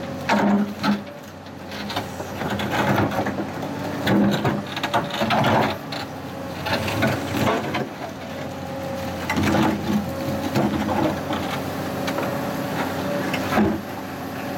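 Machine engine running steadily while broken granite rocks scrape, grind and knock together, as the blasted boulder is pulled apart and moved.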